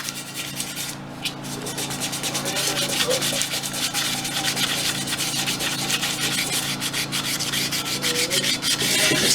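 Sandpaper rubbed by hand over a car wheel rim in rapid back-and-forth strokes, a steady scraping that eases briefly about a second in.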